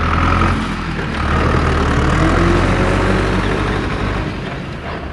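Heavy diesel tractor engine idling steadily with a deep low rumble, dipping briefly about a second in.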